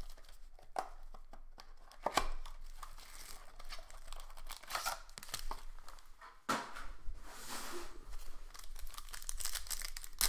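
Plastic shrink wrap crinkling as it is pulled off a trading card box, and a foil card pack crinkling and tearing as it is opened, in irregular bursts.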